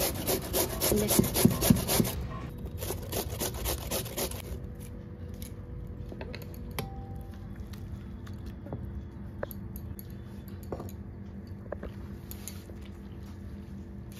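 A peeled potato rubbed fast against a stainless-steel hand grater, about four to five rasping strokes a second, with a short break and then a stop about four and a half seconds in. After that there are only faint soft ticks and handling noise.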